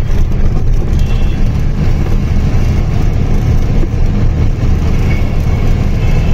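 Loaded truck's diesel engine running steadily while driving, heard from inside the cab as a loud, even low hum with road noise.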